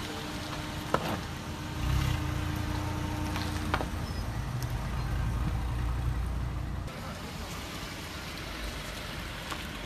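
Minivan engine running under load as it climbs over a steep concrete slope: a low rumble that starts about two seconds in and falls away near seven seconds. Two sharp clicks, about one second and nearly four seconds in.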